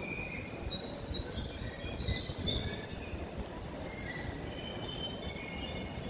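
Train running with its wheels squealing: a steady low rumble under short, high-pitched squeals that come and go at differing pitches.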